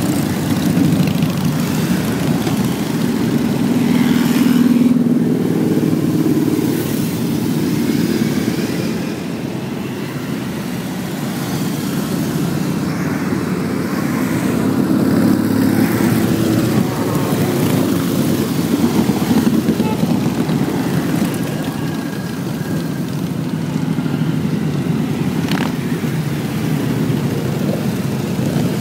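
Steady road and vehicle noise, a continuous rumble that slowly swells and fades without any distinct single event.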